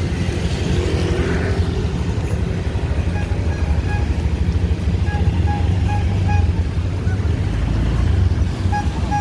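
Steady low rumble of a motor vehicle on the move, with runs of short, evenly spaced high beeps a few seconds in and again near the end.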